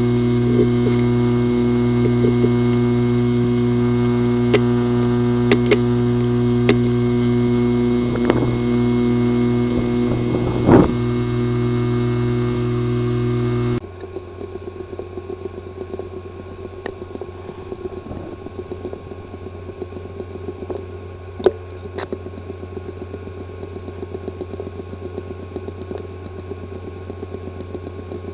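Hard disk drive with physical damage in its disk assembly, buzzing with a steady hum and a few sharp clicks. About 14 seconds in the sound changes abruptly to quieter, rapid irregular ticking with a thin high tone. These are the clicking and buzzing sounds of a drive whose heads or platters are damaged.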